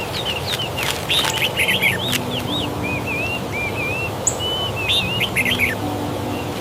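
Songbirds chirping and whistling: quick runs of short sharp notes, with a string of wavy whistled notes in the middle, over a steady low background hiss.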